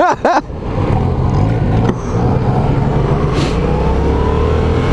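Yamaha MT-07's 689 cc parallel-twin engine heard from the saddle under wind rush, running steadily and then rising in pitch from about three seconds in as the bike accelerates.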